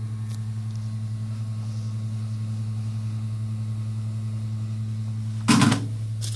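A steady low electrical hum, with a brief loud noise about five and a half seconds in and a faint click near the end.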